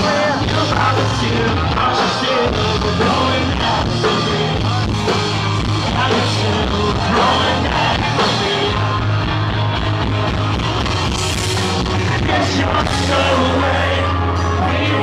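Pop-punk band playing live: distorted electric guitars, bass and drums, with a singer over them. The sound is loud and steady.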